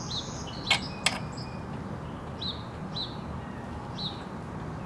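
A small bird chirping repeatedly in short, high notes. Two sharp clicks come a little under a second in.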